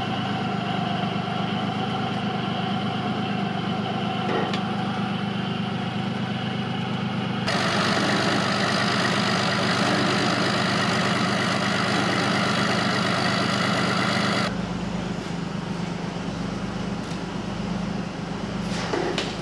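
An engine running steadily at idle, a low even hum. The sound changes abruptly twice, and is louder and hissier for a stretch in the middle.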